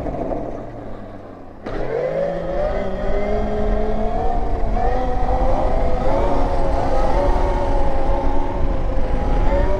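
MotoFlow electric dirt bike's motor and drivetrain whining under acceleration. The whine comes in abruptly about a second and a half in and climbs slowly in pitch as the bike pulls, over steady wind rumble on the microphone.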